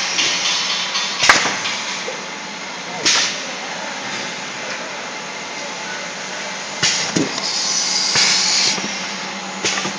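Automatic cup filling and sealing machine running: a steady hum, broken by sharp metallic clanks a few seconds apart as the mould plates index, and a short burst of hiss near the end.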